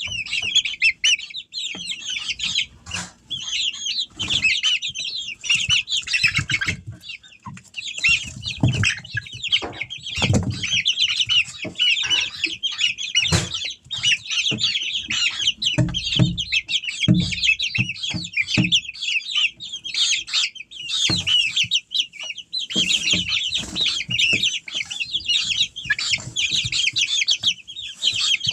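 A flock of juvenile chickens in a brooder box chirping and peeping constantly in a dense, high chorus. Frequent short low thumps and wing flapping run through it as the birds move about.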